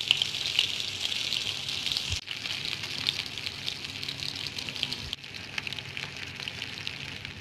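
Rohu fish steaks coated in green masala paste sizzling and crackling in hot oil in a shallow frying pan, with many small spits and pops. The sizzle drops out briefly twice, about 2 and 5 seconds in.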